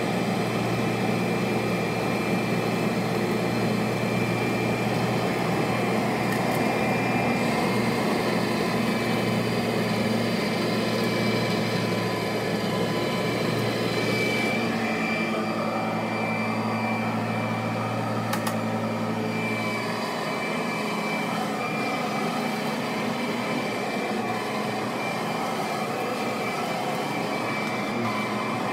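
Kirby Sentria II upright vacuum cleaner running steadily while pushed over carpet, a constant motor and fan drone. About twenty seconds in its low hum drops away and it runs slightly quieter.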